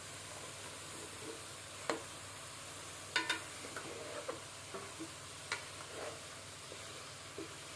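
Carrot and fenugreek sabzi sizzling steadily in a pan while a spoon stirs it. Scattered clinks and scrapes of the spoon against the pan come through, the sharpest about two, three and five and a half seconds in.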